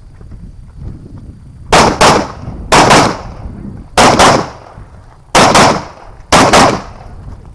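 Rifle shots fired rapidly, one group about every second, each group a close double crack.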